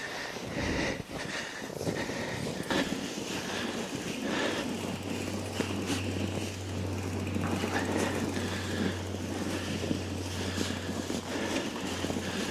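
Crunching, rustling and knocking from moving a mountain bike over snow, with a steady low hum coming in about four and a half seconds in.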